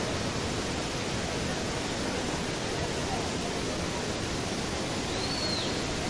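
Waterfall pouring down a rock face, a steady, even rush of falling water. About five seconds in, a short high whistle rises and falls once.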